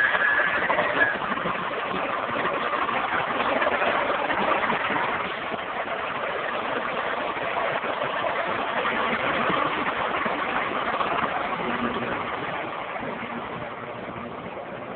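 Diesel engine of a 2003 International F-2564 hi-rail dump truck idling steadily, heard close up, with a steady high whine that stops about a second in.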